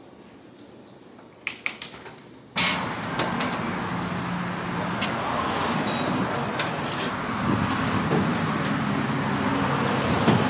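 A few soft clicks and knocks, then an abrupt switch to steady road traffic noise at a gas station, with a low hum and small clicks of a fuel nozzle being handled at the pump.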